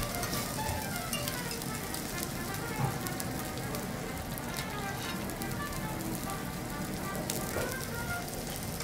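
Thick Matsusaka beef sirloin steak sizzling on a hot teppanyaki iron griddle: a steady crackling hiss with scattered small pops.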